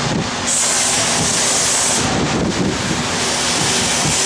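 Compressed-air blow gun hissing as it blows years of dirt and debris out of a Land Cruiser's steel frame rails. The blast starts about half a second in, dips briefly around two seconds in as the nozzle moves, then runs on steadily.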